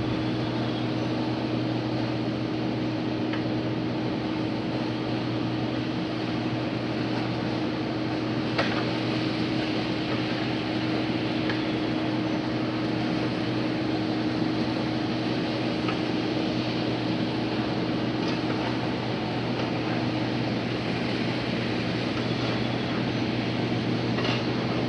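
Steady drone of a running engine or machine, holding an even low hum, with a few faint ticks.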